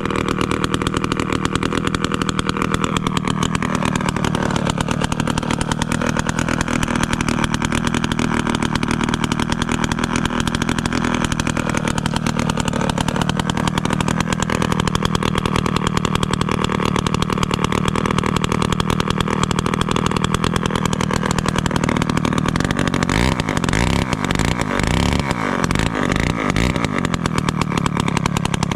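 Villiers 5F 98cc two-stroke engine of a 1957 Danarm Fury chainsaw running steadily, its speed drifting up and down slightly. The engine has started from stone cold in freezing weather on freshly renewed ignition parts: coil, points, condenser and plug.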